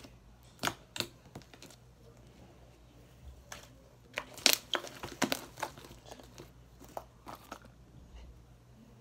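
Homemade slime being stretched, squeezed and kneaded by hand in a plastic bowl, giving irregular sticky squelches and crackles. The loudest cluster comes about four and a half seconds in.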